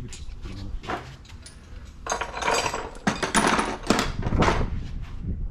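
Tools and metal parts being handled, clattering and rustling in a few short bursts during the second half.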